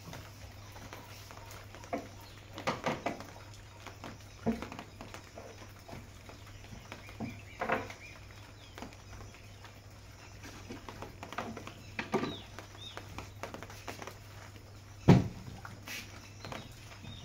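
Wooden furniture being wiped and handled: scattered short knocks and rubbing against the wood and glass, with one sharp knock about fifteen seconds in, over a steady low hum.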